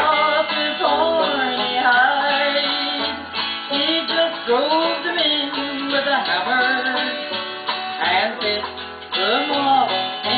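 Country-folk song: plucked acoustic guitar accompanying a singing voice.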